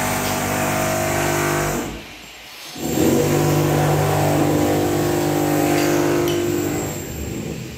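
An engine running steadily at a constant pitch, with no revving. It cuts out briefly about two seconds in, comes back, then fades near the end.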